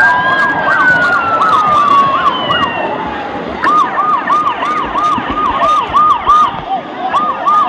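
A siren-like electronic wail. It starts as a long falling tone, then about three and a half seconds in it switches to a fast, even yelp, rising and falling about three times a second, with a short break near the end. Fainter overlapping cries and voices lie beneath it.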